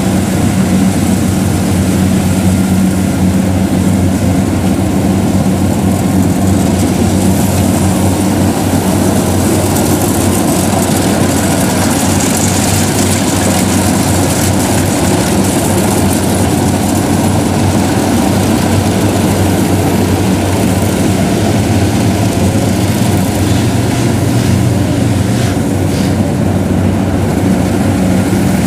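Diesel engine of a Kubota DC70 rice combine harvester running steadily under load as the machine works through sticky, soft paddy mud.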